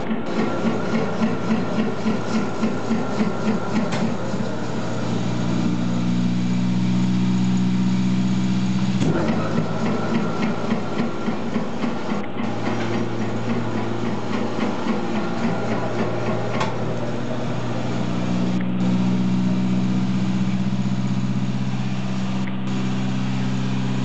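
Hobart 4046 meat grinder's 5 HP three-phase motor running empty with a steady hum. Over the hum a rhythmic rubbing knock comes about three to four times a second, fading out and returning, with a single sharp knock about nine seconds in.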